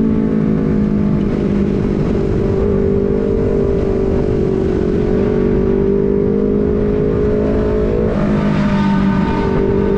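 Motorcycle fitted with a prototype aftermarket racing exhaust, running steadily under way with a slowly wavering engine note. About eight seconds in the revs step up briefly, then settle back. Wind rumble on the microphone sits underneath.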